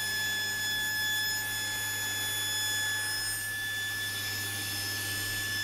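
Sliding table saw running at speed, a steady hum with a steady high whine, as a wooden offcut is fed past the blade.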